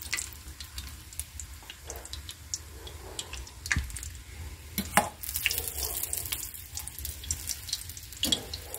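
Doughnut rings deep-frying in hot oil in a stainless steel pan: a steady crackling sizzle, with a few sharp clicks as metal tongs turn the rings in the pan.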